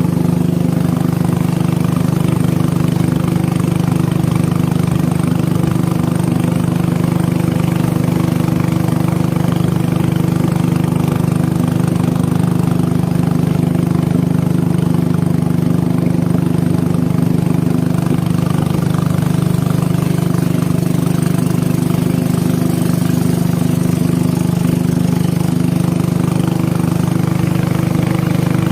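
Boat engine running steadily at constant speed, a loud, even hum with no change in pitch.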